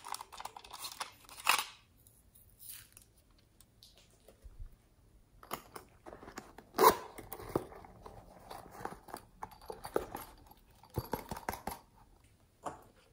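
Hands handling hard plastic toys: short clusters of clicks, taps and rustles with short pauses between them, and one sharper knock about seven seconds in.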